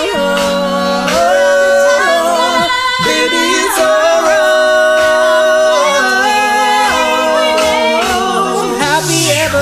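A cappella vocal group singing held, harmonized chords that change every second or two; near the end a low bass voice slides down in pitch.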